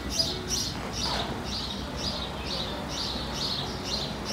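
A bird chirping over and over, short high chirps about twice a second, over a steady low rumble.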